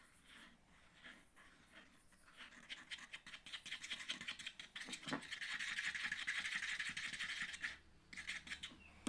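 Stirrer scraping rapidly around a container of glue, milk and slime activator as the slime mixture is stirred. The scraping gets faster and louder about two and a half seconds in, then stops about a second before the end.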